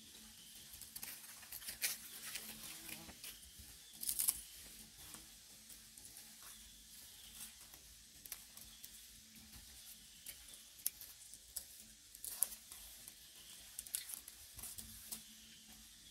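Faint crackling and rustling of dry leaf litter as macaques shift about, in scattered small clicks with louder clusters about two, four, twelve and fourteen seconds in, over a faint steady hum.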